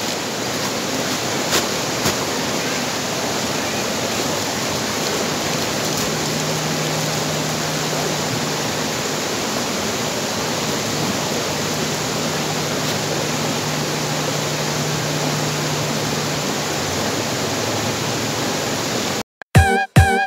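Steady rushing of a stream running over rocks. About a second before the end it cuts off abruptly and upbeat music begins.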